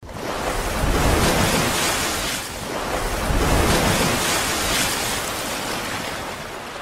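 Rushing, surf-like water noise that swells and eases several times: a water-splash whoosh sound effect.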